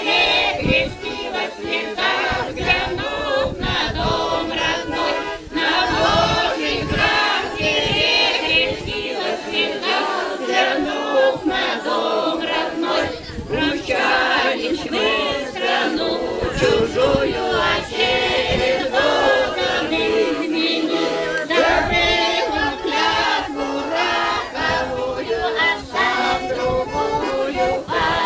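A group of men and women singing a Russian folk song together in chorus, accompanied by a garmon (Russian button accordion).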